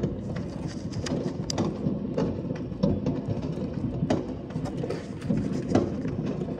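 Fireworks going off: a dense run of pops and crackles with sharp bangs every half second to a second.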